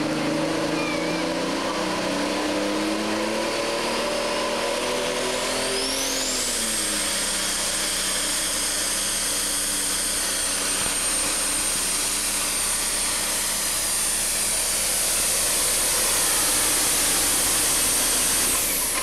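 Super Stock pulling tractor's turbocharged diesel engine running at full power as it drags the pulling sled. A high whine rises steeply about six seconds in and then holds steady.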